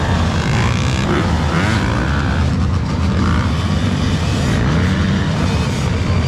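Motocross dirt bikes racing, their engines revving up and easing off over a steady low rumble.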